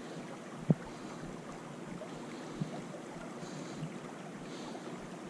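Creek water running over rocks, a steady even rush, with one sharp click just under a second in.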